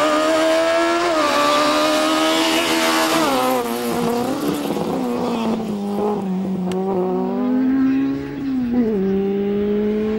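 Autobianchi A112 Abarth's four-cylinder engine revving hard, its pitch climbing and dropping over and over as the car is driven on and off the throttle around slalom cones.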